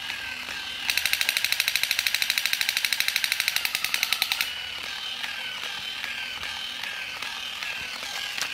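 Battery-powered crawling soldier toy, a Superman figure with a rifle, playing its electronic sound effects: a wavering tone that repeats about twice a second, and about a second in a loud burst of rapid machine-gun fire lasting about three and a half seconds.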